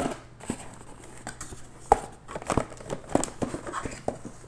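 Packaging being handled as a docking station is unboxed: crinkling and rustling with irregular clicks and knocks, the sharpest about two seconds in.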